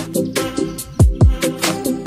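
Background music with a steady beat: deep bass drum notes that slide down in pitch, sharp snare-like hits and a held chord pattern.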